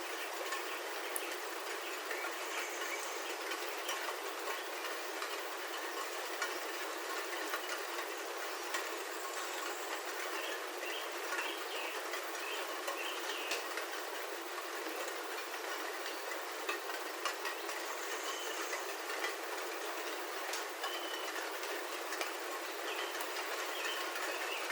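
Rain pattering on a roof, heard from inside: a steady hiss of many small drop ticks. Short bird chirps come through now and then, a run of them about halfway through.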